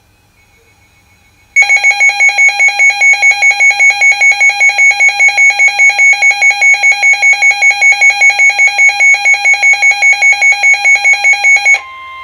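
Weather alert radio's built-in alarm beeping rapidly, about five loud beeps a second, as it is set off by an emergency alert broadcast. The beeping stops near the end, and a steady single alert tone from the broadcast takes over.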